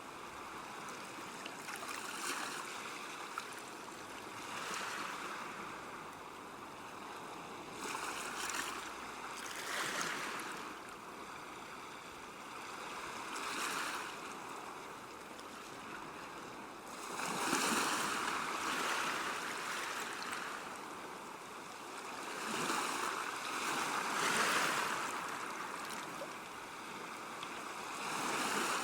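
River water washing against the bank, a steady rush that swells into louder surges every few seconds.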